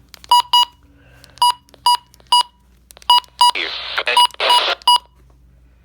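About ten short electronic beeps at one pitch, coming singly and in quick pairs at irregular intervals. A broadcast voice is briefly heard between them about two-thirds of the way in.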